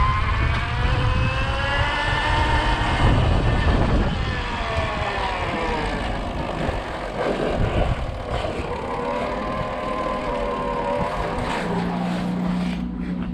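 Energica EGO electric motorcycle riding at low speed: its motor whine rises and falls in pitch with speed over wind rumble on the mount. Near the end the whine fades, leaving a steady low hum.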